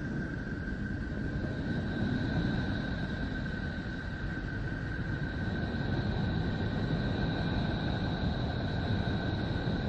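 Sonified 'sound of Neptune' made from Voyager space-probe data: a steady rumbling drone with a thin high whistle held on one pitch, and a second, higher whistle joining about two seconds in.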